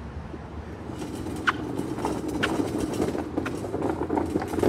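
Metal hotel luggage cart rolling across concrete pavement, its wheels and frame rattling and clattering, growing louder about a second in.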